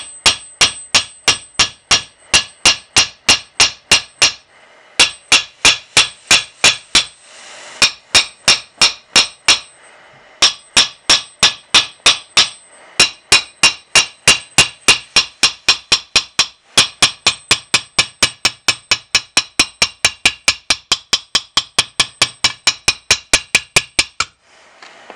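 Rapid hammer blows, about three a second, on a heated Triumph T120 cylinder barrel to drive loose a stuck part. They come in runs of several seconds broken by brief pauses and stop about a second before the end.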